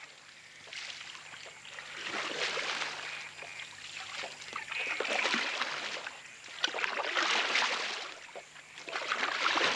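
Paddles and a pole driving a canoe through shallow swamp water: repeated swells of splashing and swishing, one roughly every one to two seconds.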